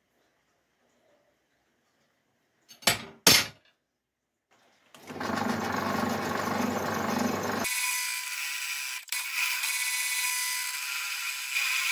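Two sharp knocks about three seconds in. Then a bench pillar drill starts running. From about eight seconds in, its bit drills speed holes through a steel plate with a steady, harsh high-pitched cutting sound.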